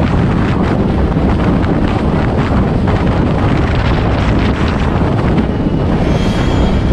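Loud, steady wind buffeting on the microphone of a camera mounted on a Honda CBR 125R ridden at highway speed, a dense low rumble.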